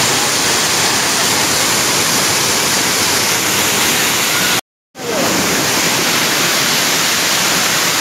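Waterfall pouring close by: a loud, steady rush of falling water. The sound cuts out completely for a moment just past halfway.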